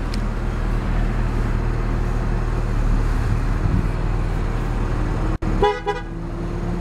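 A 2009 Mini Cooper Clubman S idling steadily, heard from the cabin. About five and a half seconds in, its horn gives one short beep.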